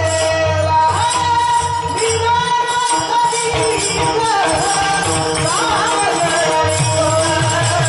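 Marathi Varkari bhajan recording: a voice singing long, ornamented notes that slide between pitches, over a steady drum beat and jingling percussion.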